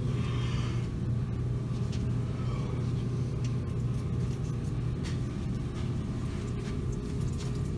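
Steady low droning hum of a store's background noise, with a few faint clicks.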